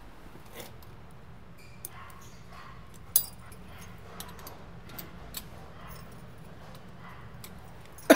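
Keys jangling and a key rattling in the lock of a stainless-steel door, with a sharp click about three seconds in. Right at the end a dog barks once, a short call falling in pitch.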